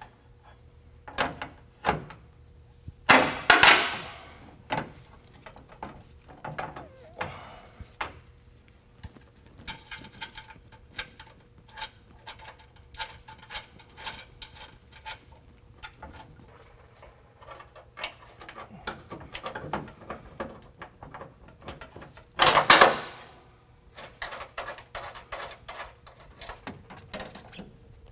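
Bolts, nuts and a compressor mounting bracket handled and fastened by hand against a truck's steel cross member: scattered metallic clicks, taps and rattles, with a quicker run of small ticks in the middle and two louder scrapes, about 3 seconds and about 22 seconds in.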